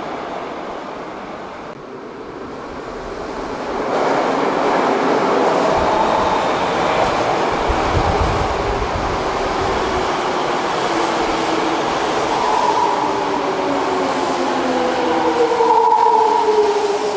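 Toei 5300 series subway train running into the station and braking: wheel rumble comes in loudly about 4 s in, then from about two-thirds of the way through the whine of its GTO VVVF inverter falls in several tones at once as the train slows.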